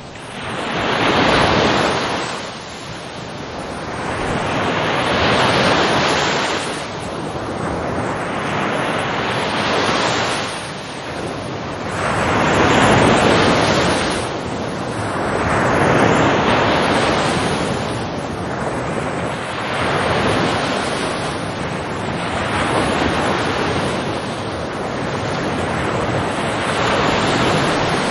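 Ocean waves breaking and washing on the shore in a steady rhythm, each surge swelling and fading every three to four seconds.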